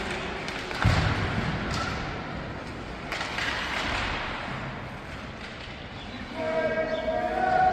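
Rink noise during an ice hockey game: a sharp thud about a second in, then near the end a long held horn-like tone.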